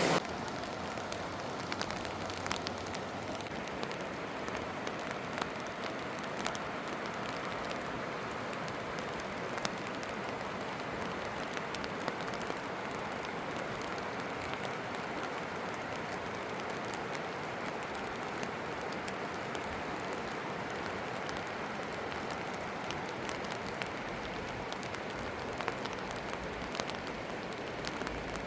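Steady rain falling, an even hiss with scattered single drops ticking throughout.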